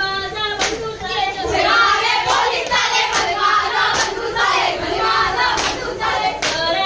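Voices singing a jakhadi folk dance song, with sharp hand claps on the beat about every half second to a second.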